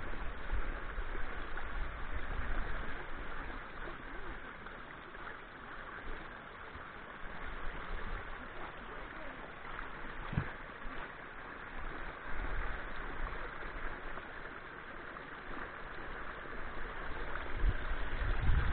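Wind buffeting the microphone as a low rumble over a steady outdoor hiss, gusting louder near the end, with one short knock about halfway through.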